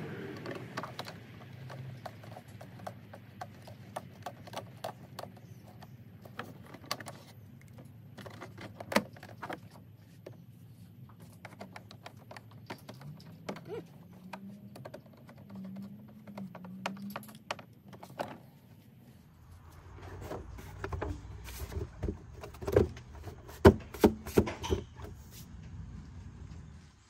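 Scattered small clicks and taps of a screwdriver and hose clamp as the intake hose is refitted in a car's engine bay. In the last several seconds come a few louder sharp knocks.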